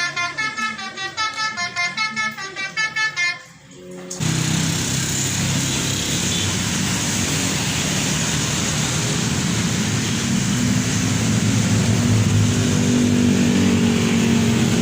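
Basuri multi-tone bus horn ('telolet') playing a quick run of short notes stepping up and down in pitch, which stops about three and a half seconds in. From about four seconds a steady, loud rumbling noise with a low hum takes over.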